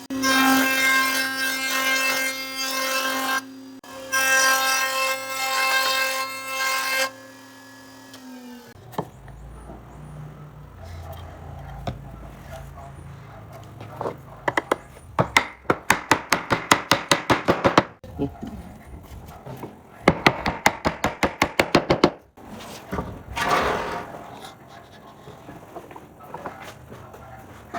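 Woodworking: a loud steady machine whine for the first seven seconds, breaking off briefly after about three seconds. Later come three runs of rapid back-and-forth strokes on wood, about eight a second.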